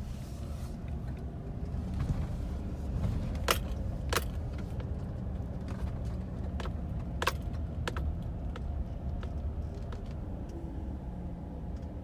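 Steady low rumble of a vehicle running, with a few sharp clicks, the loudest pair about a third of the way in and another a little past halfway.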